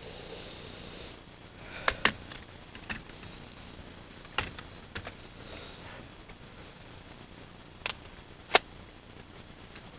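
Plastic airsoft shotgun being worked and fired: a short hiss, then a series of sharp separate clicks and snaps, the loudest near the end.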